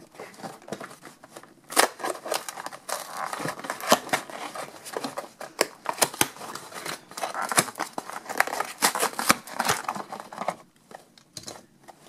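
Toy packaging being opened by hand: a cardboard box and its insert rustling and tearing, with plastic crinkling and many small irregular clicks and scrapes. It goes quieter for a moment near the end.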